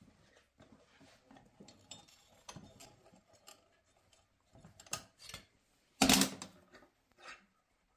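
Small metal objects clinking and knocking at irregular intervals as blacksmithing tools and stock are handled, with one louder, short metallic clatter about six seconds in.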